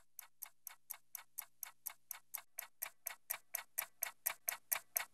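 Fast, even ticking like a clock, about four ticks a second, slowly growing louder.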